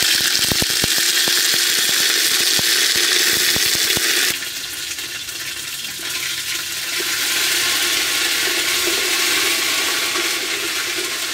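Ginger paste sizzling loudly in hot oil in a metal pot, starting abruptly as it goes in. Quick clicks of a metal ladle stirring against the pot come through in the first few seconds, and the sizzle eases a little about four seconds in.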